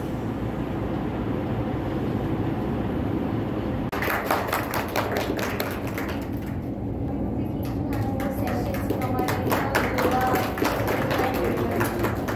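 A low, steady rumble of room noise, then about four seconds in a burst of scattered hand clapping from an audience that goes on to the end, with a few voices mixed in.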